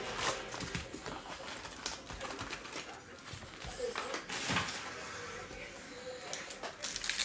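Foil trading-card packs crinkling and rustling as they are pulled from a cardboard hobby box and handled, with short scrapes and taps of cardboard. Two louder bursts of rustling stand out, about half a second in and around four and a half seconds in.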